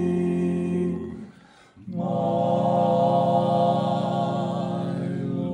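Barbershop quartet of four men's voices singing a cappella, holding a sustained chord, breaking off briefly about a second in for a breath, then holding a new chord.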